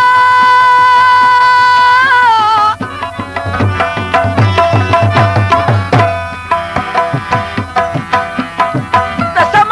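Pashto tappay music with tabla. A long held note opens it and bends down after about two seconds. Then tabla strokes keep a quick rhythm under a moving melody.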